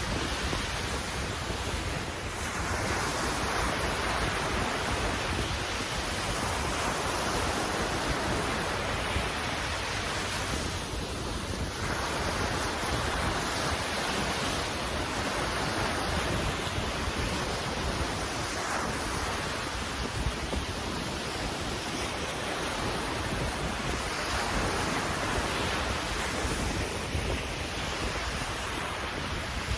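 Ocean waves washing in and out in slow swells, with wind buffeting the microphone.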